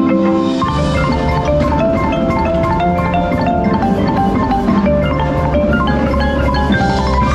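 Marimba played with four yarn mallets in quick runs of notes, part of a percussion ensemble. A deep low bass layer from the ensemble comes in under it about half a second in.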